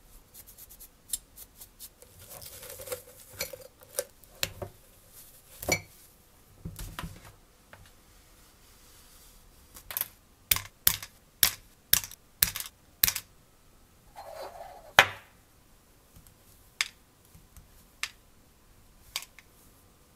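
Small metal parts and hand tools clicking and tapping as they are handled, with two short scraping passes. Midway comes a run of about seven sharp clicks, roughly two a second. The loudest click follows a brief scrape about three-quarters of the way in.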